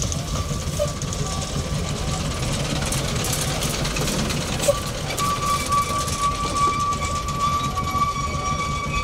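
Narrow-gauge industrial diesel locomotive passing close at low speed, its engine running with a steady low rumble. A steady high-pitched squeal joins about five seconds in.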